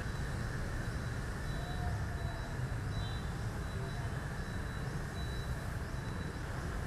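Steady low ambient rumble, even throughout with no distinct events.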